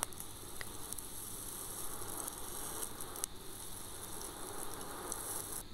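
Masoor dal fritters sizzling steadily as they shallow-fry in hot oil in a frying pan. A few faint clicks come from the spatula turning them over.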